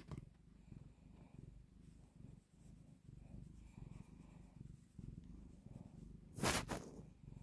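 Tabby cat purring steadily while its head is stroked, a low rhythmic rumble. About six and a half seconds in, a brief loud rustle cuts across it.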